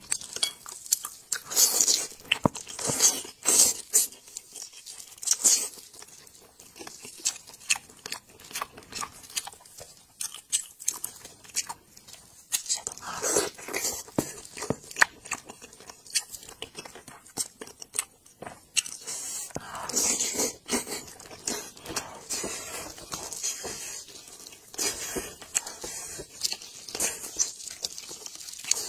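Close-miked eating sounds: chewing and biting on spiced sheep's head meat, with a dense, irregular run of wet clicks and smacks. The meat is torn apart by plastic-gloved hands.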